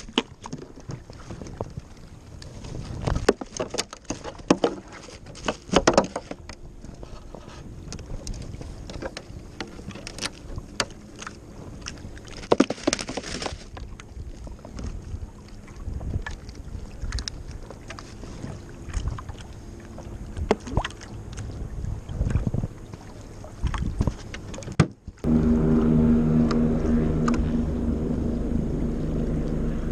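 Scattered knocks, clicks and rustles of fishing gear and a cooler being handled on a paddleboard on open water. Near the end, after a brief drop-out, a steady low hum with several held tones sets in.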